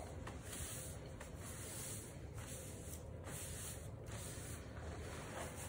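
Faint chewing and mouth noises of a man eating barbecued pork ribs, in soft irregular pulses.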